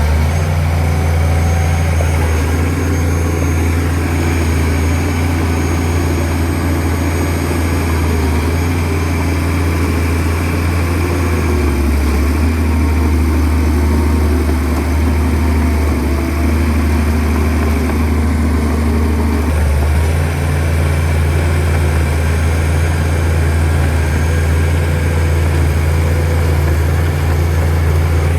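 Shantui DH17C2 bulldozer's diesel engine running steadily with a deep hum. Its note changes about twelve seconds in and returns about eight seconds later.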